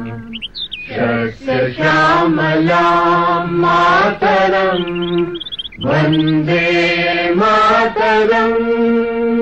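Chanted vocals in long held notes, a low voice sustaining each pitch for a second or two in several phrases with short breaks between them.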